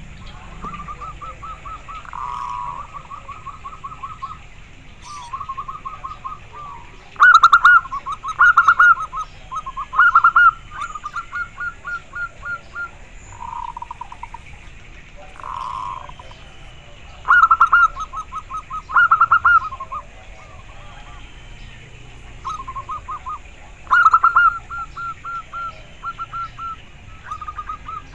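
Local-type zebra dove (perkutut) singing: repeated phrases of quick, rolling coo notes, some loud and some soft, coming again and again every few seconds.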